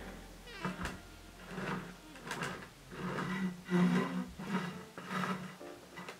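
Metal icing spatula and bench scraper scraping and smoothing whipped cream on a cake turning on a plastic cake turntable: a run of repeated swishing scrapes, about one every two-thirds of a second, loudest about four seconds in.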